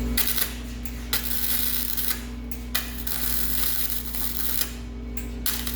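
Electric welder's arc crackling and sizzling in three short runs with two brief pauses, welding an exhaust dump into the exhaust pipe, over a steady low hum.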